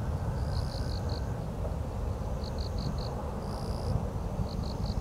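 An insect chirping in sets of four quick, high pulses, a set about every two seconds, over a steady low rumble.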